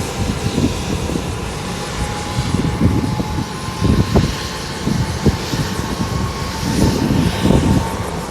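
Bell 205 helicopter running, its single turboshaft engine giving a steady whine over the uneven low thumping of the two-bladed main rotor.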